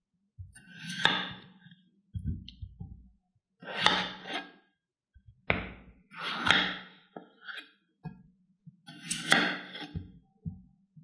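Kitchen knife slicing through peeled raw potatoes on a wooden cutting board: about five separate cuts, each a crisp crunch through the potato ending in a knock of the blade on the board.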